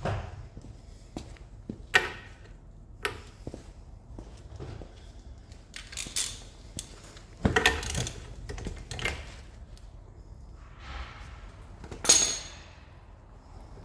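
Metal tools and steel suspension parts clinking and clanking at irregular intervals during a hub strip-down, with a loud ringing clank near the end.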